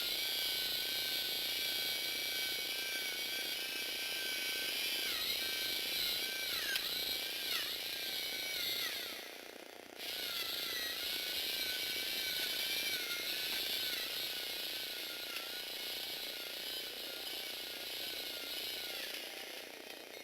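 Small electric motor and plastic gear train of a Lego Technic model car running with a steady, high mechanical whine. The pitch dips a few times, the drive stops briefly about halfway through, then starts again and runs until it tails off near the end.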